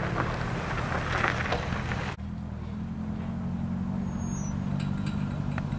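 Car engine running steadily at idle, with general outdoor bustle in the first two seconds. The sound changes abruptly about two seconds in, leaving the engine note clearer, with a few light clicks near the end.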